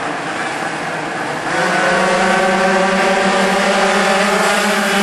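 A pack of two-stroke minimoto (pocket bike) engines revving as the race starts, getting louder about a second and a half in as the bikes pull away together at a steady high pitch.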